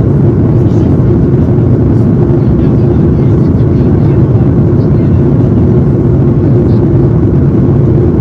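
Steady, loud drone of engine and airflow noise inside the cabin of an Airbus A330-200 with Rolls-Royce Trent 700 engines in flight.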